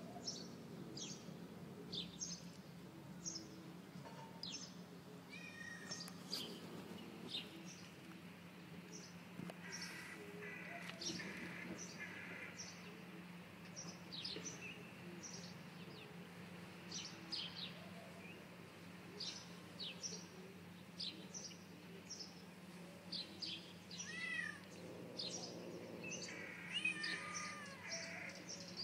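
Cats meowing a few times while eating, with frequent short high chirps from small birds and a faint steady low hum underneath.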